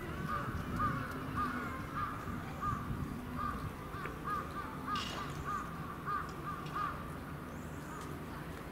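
A crow calling in a long series of short, arched calls, one every half second or so, that stop about seven seconds in.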